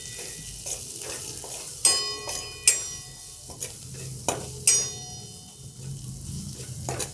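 Metal spatula stirring and scraping an onion and spice mixture frying in oil in a stainless-steel kadai: a steady sizzle with ringing clinks of the spatula against the pan, the three sharpest about two, three and five seconds in.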